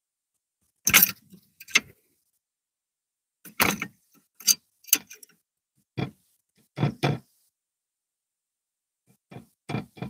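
Northern flicker pecking at a wire suet feeder cage: irregular clusters of sharp knocks and metallic rattling, about nine in all, separated by pauses. The loudest comes about a second in.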